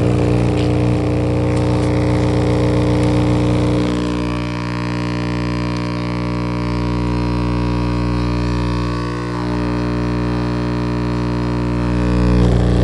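Two Sundown E8 8-inch subwoofers wired straight to a 120-volt wall socket, driven by about 700 watts of 60 Hz mains current and giving a loud, steady hum. About four seconds in the hum thins and drops a little, then comes back fuller near the end.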